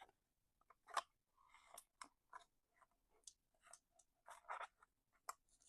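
Faint, crisp rustles and flicks of paper banknotes being handled and counted by hand, a string of short scattered crackles.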